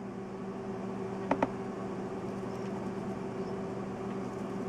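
A steady low hum of running equipment, with two quick sharp clicks in close succession about a second and a half in.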